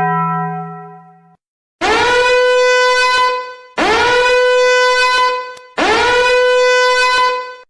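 A low held tone that fades out, then three long identical horn blasts. Each blast slides up in pitch into a steady note, holds it for about two seconds and stops.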